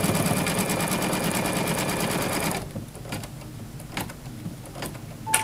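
Embroidery machine stitching a piecing seam at speed, the needle ticking rapidly and evenly; it stops abruptly about two and a half seconds in. A few separate clicks follow.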